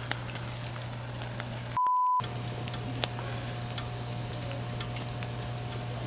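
A single short, steady, pure-tone censor bleep, about half a second long, about two seconds in, replacing the audio while it sounds. Around it, a low steady hum and a few faint clicks.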